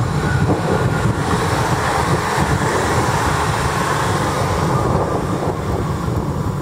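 Koleje Małopolskie electric multiple unit passing close at speed: a steady rumble and rush of wheels on rail that carries on after the last car has gone by.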